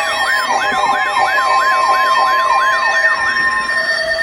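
Several weather radios sounding their alert alarms together for a severe thunderstorm warning. A siren-like warble sweeps up and down about three times a second over a steady warning tone that cuts off near the end, with other steady beeping tones underneath.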